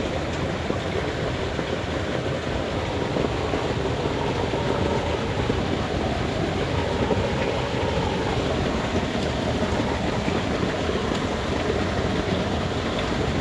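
Steady rush of water flowing down a small irrigation channel.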